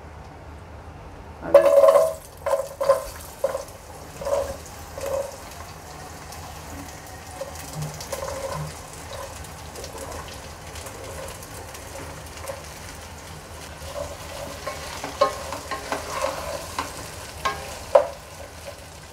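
Chopped vegetables frying in hot oil in a pan. The sizzling starts suddenly about a second and a half in, with a spoon stirring and clinking against the pan, most often near the start and again near the end.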